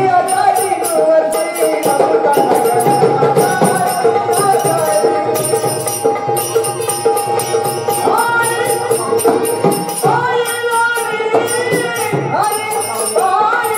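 Marathi gavlan devotional song: a voice sings a melodic line over steady held tones, with jingling percussion keeping a steady beat.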